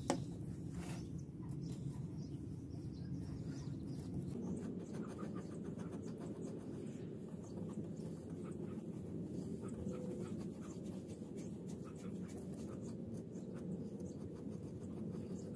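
Bristle paintbrush scratching and dabbing over wood, spreading glue across the faces of a V-shaped joint, a light crackle of strokes that begins about four seconds in, over a steady low background rumble.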